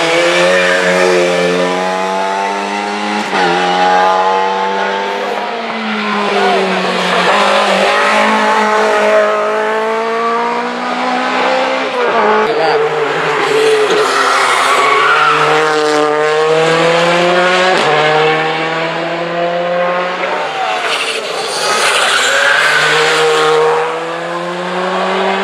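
Rally cars driven hard through a tarmac bend one after another, engines revving high and dropping back through gear changes. Lada saloons pass first, then a modern rally car near the end.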